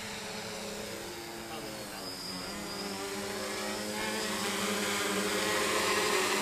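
Quadcopter's electric motors and propellers buzzing in flight, a steady hum of several wavering tones that grows steadily louder.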